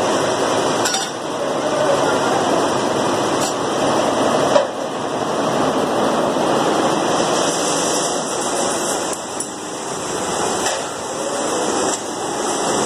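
Multi-head computer embroidery machines running: a steady mechanical clatter with a few sharp knocks, the loudest about four and a half seconds in.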